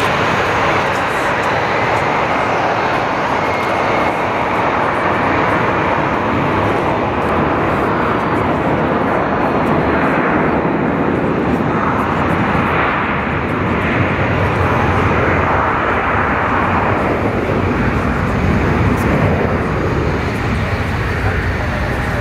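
Twin rear-mounted Rolls-Royce BR710 turbofans of a Bombardier Global 5000 running at takeoff power through the takeoff roll and lift-off: a continuous jet roar that grows a little louder in the second half.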